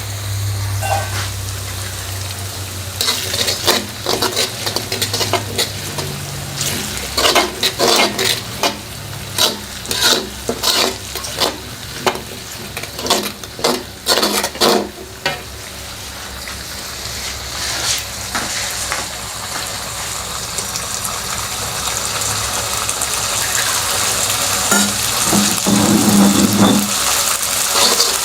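Food frying in a pan while a spatula scrapes and knocks against it in quick, irregular strokes as it is stirred. After about halfway the stirring stops and a steady sizzle keeps growing louder.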